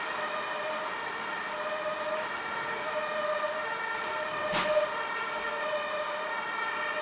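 Distant siren sounding a steady tone over the rushing noise of the storm wind. A short sharp crack about four and a half seconds in is the loudest moment.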